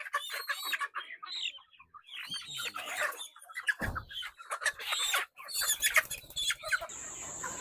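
A flock of point-of-lay hens squawking and clucking, with wings flapping as the birds are handled for loading, and a dull thump about four seconds in.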